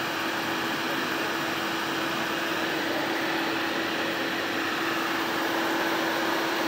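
Steady hum and hiss of an idling vehicle, with one constant low tone and no change in level.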